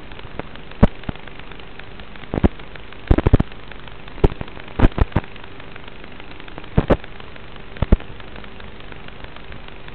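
Steady static hiss with a faint hum, broken by about a dozen loud, sharp crackling pops at irregular times, some in quick clusters. This is radio noise on the audio channel of an analog FPV video recording, not the quadcopter's motors.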